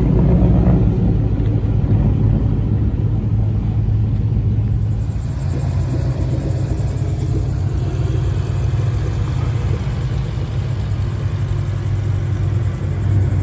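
Ford Mustang exhausts with a deep, steady rumble, in a few short cuts from one car to the next.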